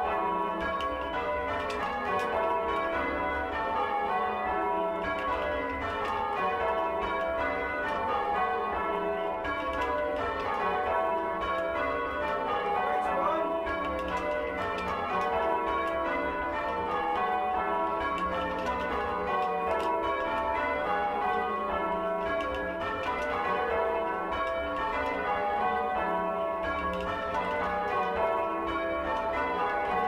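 A ring of six church bells (16 cwt, tenor in E) rung full circle by rope in change ringing. The bells strike one after another in rows that step down in pitch, over and over, heard from the ringing chamber below the bells. The tenor is oddstruck, so its blows fall unevenly.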